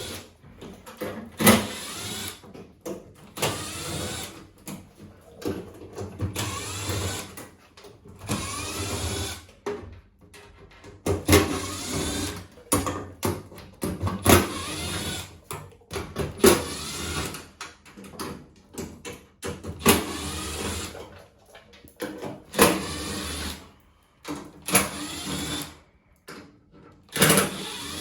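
Cordless screwdriver whirring in short bursts, backing the screws out of a washing machine's back panel one after another, with sharp knocks and clicks between the bursts.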